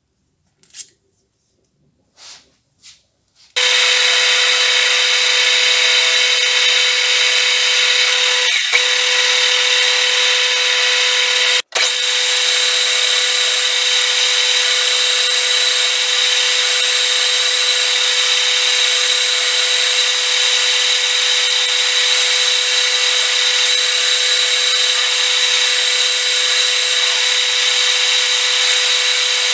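A few light clicks, then a bench metal lathe starts abruptly about three and a half seconds in and runs steadily with a strong whine, cutting out for an instant once near the middle.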